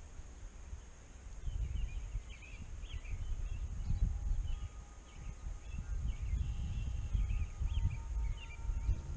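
Small birds chirping over and over, with a fluctuating low rumble underneath.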